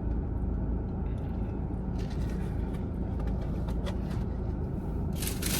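Steady low rumble of a car's engine heard from inside the cabin, with a few small handling clicks. About five seconds in, a loud hissing rustle starts.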